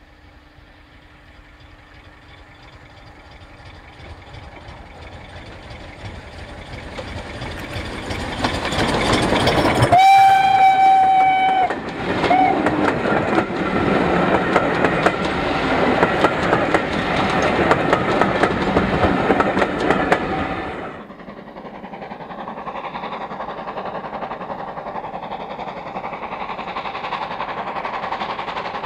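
Steam locomotive hauling coaches, growing steadily louder as it approaches. It sounds its whistle once for nearly two seconds about ten seconds in, then gives a short second toot. The coaches then run past close by, loud and rushing, until the sound cuts suddenly to a quieter, distant train running.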